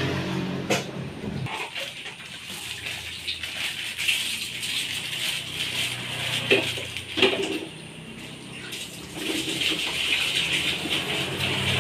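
Plastic bag of wheat flour crinkling and rustling as it is opened and handled, with a few sharp crackles about six and seven seconds in. A low hum stops about a second and a half in.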